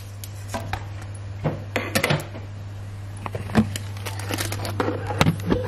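Scattered light clicks and knocks of kitchen handling, a plate and small things set down and moved, over a steady low hum.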